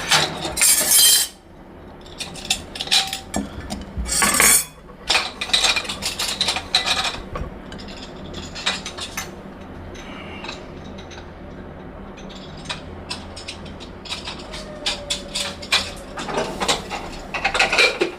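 Metal pots and utensils clattering and clinking as they are handled, in irregular knocks, loudest just after the start, about four seconds in, and near the end.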